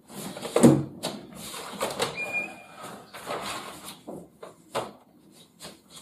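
Papers and folders rustling and being shuffled while someone searches through a desk's cubbyholes, with scattered knocks and clicks of things being moved and a brief high squeak about two seconds in.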